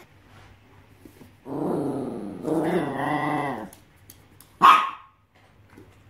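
A dog growls in a standoff over a stuffed toy: a low, wavering growl from about a second and a half in, in two stretches with a short break, lasting about two seconds. About a second after the growl stops comes a single sharp bark, the loudest sound.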